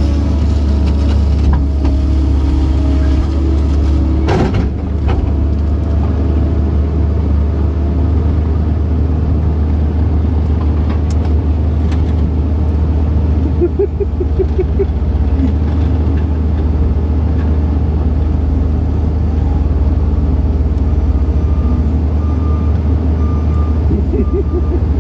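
Kobelco SK135SR excavator's diesel engine running steadily, heard from inside the cab. A sharp knock sounds about four seconds in, and a faint repeating beep comes in near the end.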